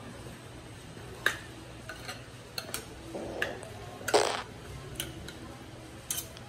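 Metal fork and spoon clicking and scraping against a bowl while stirring a wet grated-squash and egg batter. Scattered light clicks, with one longer, louder scrape about four seconds in.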